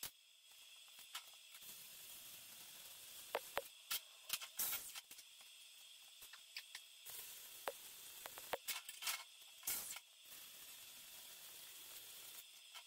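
Stick-welding arc on steel crackling and hissing, with frequent sharp pops and clicks, as a steel post is welded to its base plate.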